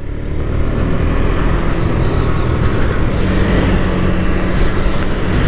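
KTM Duke 250's single-cylinder engine running steadily under way, mixed with a rushing wind noise over the rider's microphone; a steady low engine tone comes in about halfway.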